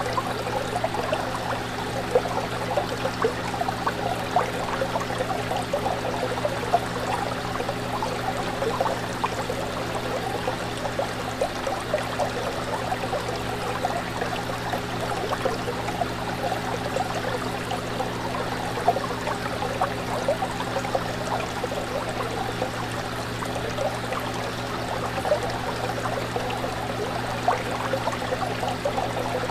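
Fish tank water bubbling and trickling without a break, full of small splashes, over a steady low hum.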